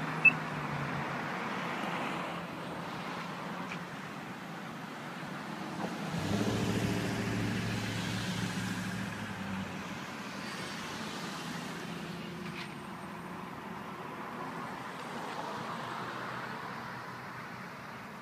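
Road traffic at an intersection: car engines and tyres, with one vehicle passing close about six seconds in, rising and then fading over a few seconds. A sharp click sounds right at the start.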